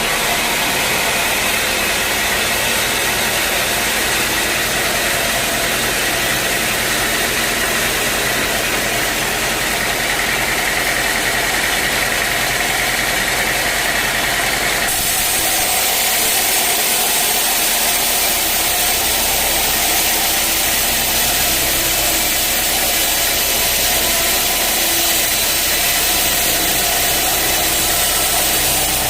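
Sawmill's engine running steadily, with an abrupt change in its sound about halfway through.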